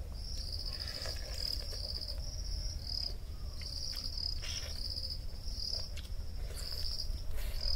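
Insect chirring: a steady high-pitched trill that pulses about twice a second.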